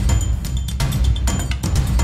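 Background music with heavy drums and percussion driving a steady beat over a strong bass.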